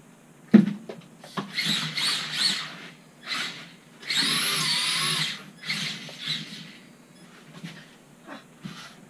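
Electric motor and gears of a LaTrax 1/18 rally RC car whining in short throttle bursts, the pitch wavering up and down; the longest burst, a little over a second, comes around the middle. A sharp knock sounds about half a second in.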